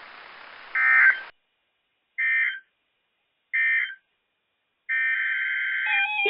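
NOAA Weather Radio SAME end-of-message data tones: three short warbling digital squawks about a second and a half apart, with dead silence between them, marking the end of the warning broadcast. About five seconds in a longer data-tone squawk begins, and near the end lower steady alert tones with a pulsing beep join it.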